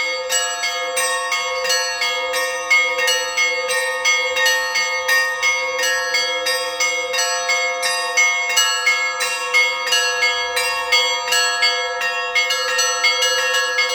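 Russian Orthodox church bells ringing a Christmas peal. Small bells are struck in a quick, even rhythm, about two to three strokes a second, over the sustained ring of larger bells.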